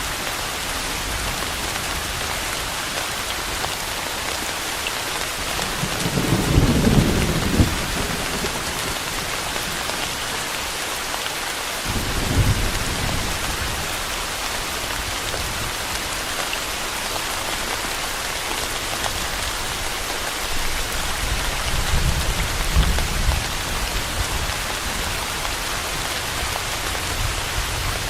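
Steady rain falling. Low rumbles of thunder come three times: about six seconds in, about twelve seconds in, and around twenty-two seconds in.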